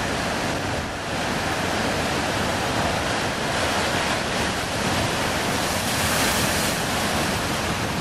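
Heavy surf from a big storm swell breaking and washing ashore: a dense, steady rushing noise that grows a little louder and brighter about six seconds in.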